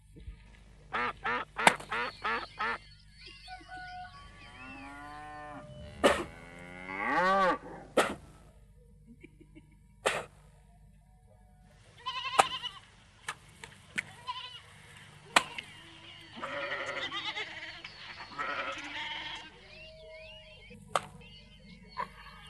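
Loud, pitched animal calls in bursts. A quick run of short calls comes about a second in, then long calls that slide down and then up, and another cluster of calls in the second half.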